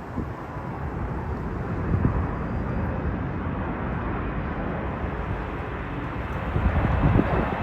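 Jet engine noise of a Boeing 787-9 on approach, slowly growing louder as it nears, with gusts of wind buffeting the microphone.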